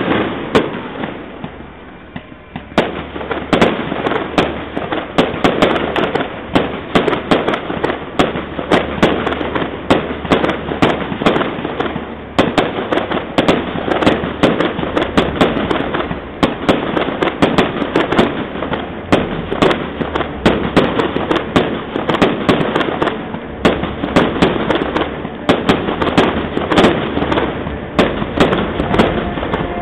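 Fireworks display: a loud shell burst at the start dies away, then about three seconds in a dense, unbroken barrage of rapid bangs and crackling aerial shell bursts sets in, several reports a second.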